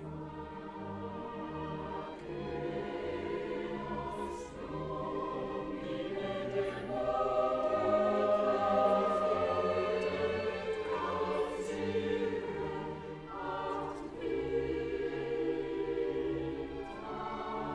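Background music: a choir singing long, held notes over an orchestra, swelling to its loudest about halfway through.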